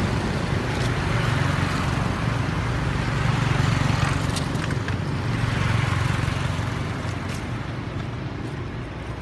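Road traffic noise: a steady low rumble of vehicles going by, swelling and easing a few times, then fading near the end.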